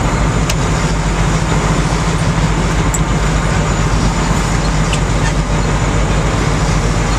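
Sportfishing boat's engines running steadily, the boat moving slowly ahead, as a steady drone with a broad rush over it.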